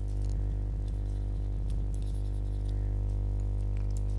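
Steady electrical hum with a buzz of evenly spaced overtones, and faint scattered small clicks over it.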